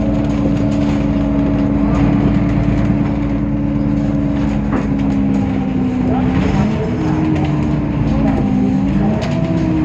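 Temsa Avenue LF city bus with its DAF PR 228 diesel and ZF 6AP 1400B automatic gearbox running, heard on board: a steady low rumble with a humming tone. The hum holds level, then wavers up and down in pitch in the second half.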